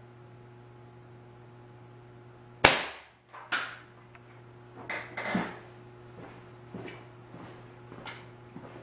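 A single shot from a homemade .177 smooth-bore pneumatic gun fired by a solenoid valve on 150 psi air: a sharp loud crack about a third of the way in, then a second knock under a second later and a few smaller knocks and clicks after.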